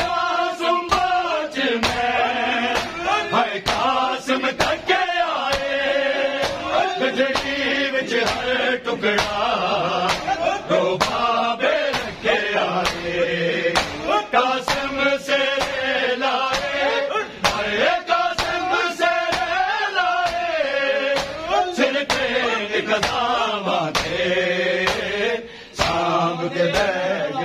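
Men's voices chanting a mourning noha, a lead male reciter with the group joining in, over the sharp slaps of hands beating bare chests in matam, keeping a steady rhythm.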